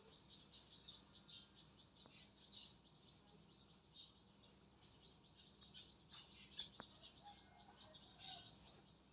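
Faint, rapid, irregular chirping of small birds, with a low steady hum beneath and a couple of soft clicks.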